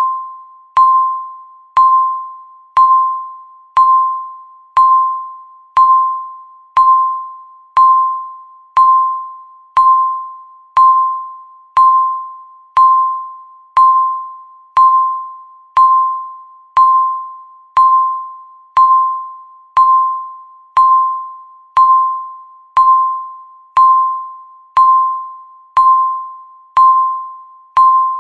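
Countdown timer beeping once a second, each second ticked off by a single mid-pitched electronic beep that starts sharply and fades quickly.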